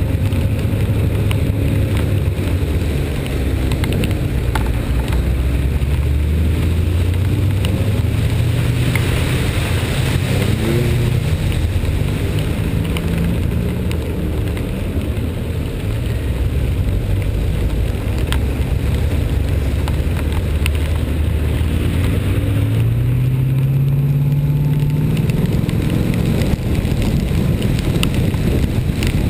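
Vehicle engine running under load, its pitch climbing twice and dropping back, over a steady hiss of wind and wet-road noise.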